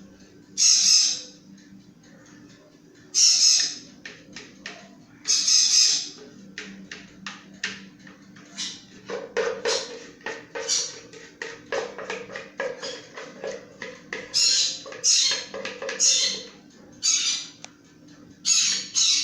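A bird squawking in loud, harsh calls of about half a second each, roughly ten times, over a run of quick taps and scrapes in the middle, typical of cake batter being scraped out of a mixing bowl into a baking tin.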